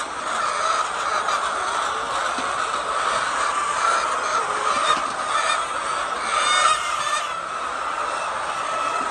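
A flock of laying hens clucking and calling together in a steady chorus, with one louder squawk about six and a half seconds in.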